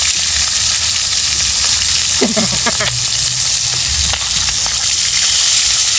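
Catfish pieces sizzling steadily as they fry in oil in an aluminium pan, with a metal spatula and fork moving them about.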